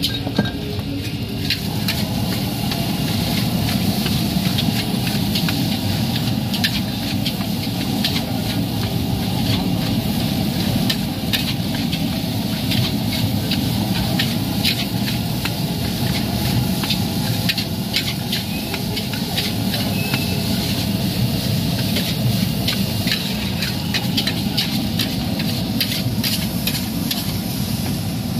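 Nasi goreng frying in a large steel wok, the metal spatula scraping and clinking against the wok many times as the rice is tossed, over a steady rushing noise.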